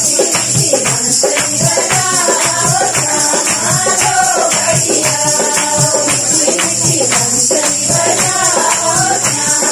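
Group of women singing a Pahari folk devotional song to a steady beat of hand-clapping and jingling percussion.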